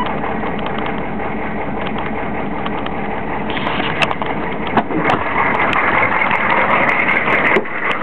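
1993 Chevy pickup's 6.5-litre turbo diesel V8 idling rough just after a cold start, heard first inside the cab and then outside, where it is louder. A sharp click comes about halfway through.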